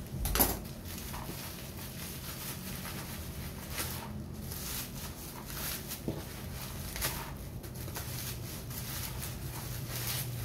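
Plastic bubble wrap being handled and pulled open by hand, crinkling and rustling now and then, with a sharp click about half a second in.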